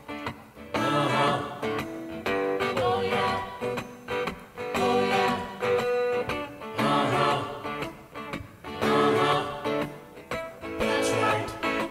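A song with guitar and a group of voices singing short call-and-response phrases ("uh huh, uh huh, oh yeah, oh yeah"), each phrase coming about every two seconds.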